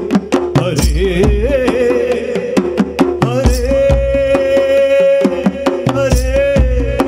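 Male voice singing a Malayalam devotional song to Krishna, drawing out long, wavering held notes. Behind it a hand-drum ensemble keeps a quick rhythm of sharp strokes, with a deep drum hit about every two and a half seconds.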